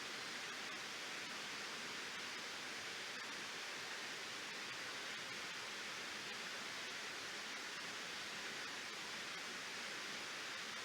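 Waterfall: water pouring over a reservoir dam, a steady, even rush.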